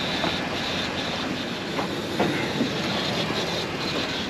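2002 Dodge Durango's engine running steadily while it warms up to operating temperature, with scattered sharp ticks over a steady high whine.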